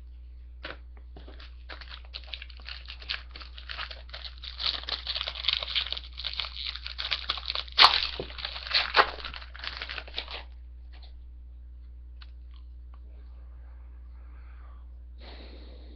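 Hockey card pack wrapper being torn open and crinkled by hand: a dense crackle that builds for several seconds and stops about ten seconds in, followed by a few faint ticks.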